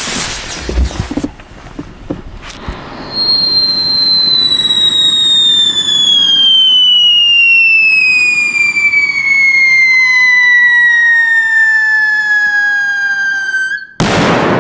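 Scream 100 whistle-to-salute firecracker: the lit fuse hisses briefly, then about three seconds in a loud whistle starts and slowly falls in pitch for about ten seconds. Near the end the whistle cuts off and the 100 g ground salute goes off with a single loud bang.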